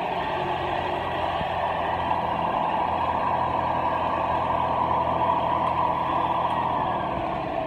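Vintage Hoover Senior upright vacuum cleaner running steadily, its motor giving a loud, even drone with a low hum.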